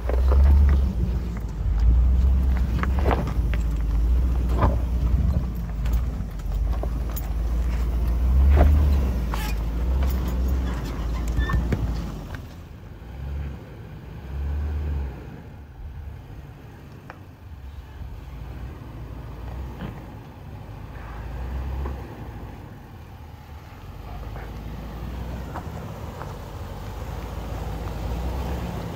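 Land Rover LR4 driving slowly over rough trail: a low engine and drivetrain rumble with scattered knocks and clicks. The sound grows quieter and duller after about twelve seconds.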